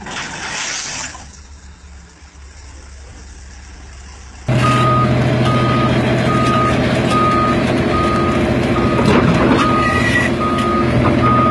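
A short hiss in the first second. Then, from about four and a half seconds in, a heavy vehicle's engine runs loudly while its reversing alarm beeps steadily, about one and a half beeps a second.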